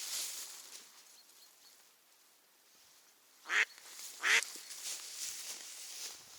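Decoy mallard hen quacking twice in quick succession, loud and short, calling to draw in drakes. A faint rustling runs underneath.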